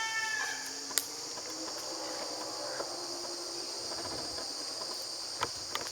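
Insects chirring in a steady high-pitched outdoor chorus, with a chicken's drawn-out call trailing off in the first second and a single sharp click about a second in.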